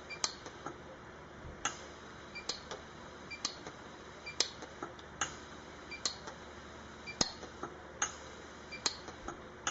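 Lampert PUK 3S pulse-arc welder firing single weld pulses, each a sharp tick, about one or two a second at uneven spacing, as sterling silver wire is fed into a crack. A faint steady high tone runs underneath.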